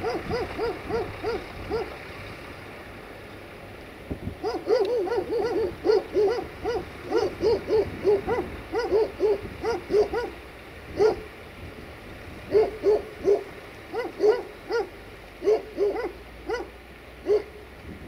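A dog barking over and over in quick runs of several barks a second, falling quiet for a couple of seconds early on and again briefly about two-thirds of the way through.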